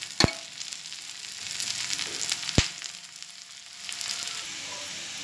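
Sliced onions with grated dry coconut and chopped coriander sizzling in oil on a flat iron tawa, being sautéed over medium heat. A spatula stirs them, with two sharp clicks against the pan.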